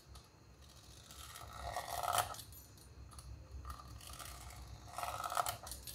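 Fluted pastry cutter wheel rolling and scraping through a thick sheet of wheat-flour dough on a wooden board, cutting strips. The louder strokes come about two seconds in and again near the end.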